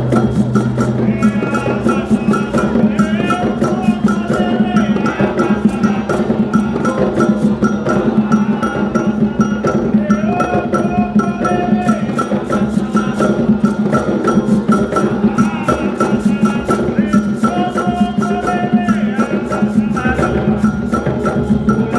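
Candomblé drumming: hand drums playing a fast, dense rhythm with a metal bell ringing a steady pattern over it. Voices sing chant phrases at intervals above the drums.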